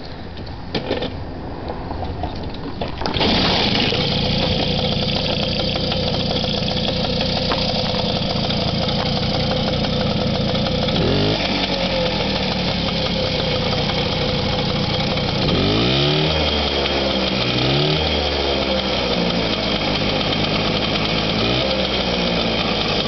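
1979 AMF Free Spirit moped's Puch-based single-cylinder two-stroke engine starting: some clicking and rattling, then the engine catches about three seconds in and runs steadily. Further on, the throttle is blipped and the engine revs up and drops back several times.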